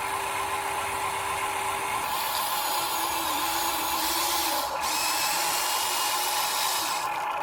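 Electric motors and gearboxes of an RC model construction machine whining steadily under power. A lower motor tone holds for about two seconds, then wavers up and down as the speed changes.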